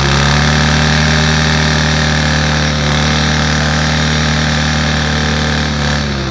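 Enduro motorcycle engine held at steady high revs while the rear wheel spins in place in the mud, throwing a spray of dirt: the bike is stuck. The revs drop near the end.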